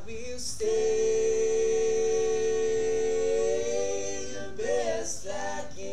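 Male vocal group singing unaccompanied in harmony, holding one long steady note for about four seconds, then a few short notes near the end.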